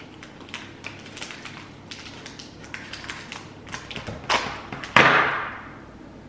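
Candy wrapper crinkling and clicking as hands work at a tightly sealed package, then torn open with two rips about four and five seconds in, the second the loudest, fading over about a second.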